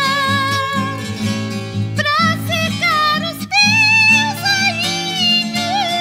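Song: a high female voice holds long sung notes with vibrato, stepping up in pitch about two seconds in and again near the middle, over a plucked acoustic guitar accompaniment.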